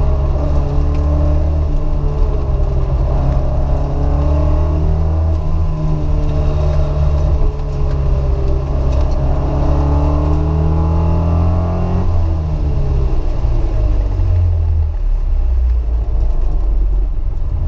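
Alfa Romeo Alfetta's four-cylinder engine heard from inside the cabin, pulling hard with its pitch rising and falling through throttle and gear changes. About twelve seconds in the note drops and stays lower toward the end.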